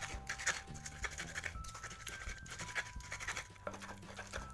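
Stone pestle grinding chilies, shallots, garlic and salt against a stone mortar (ulekan on a cobek), a run of gritty scraping and crushing strokes as the ingredients are worked into a chili paste.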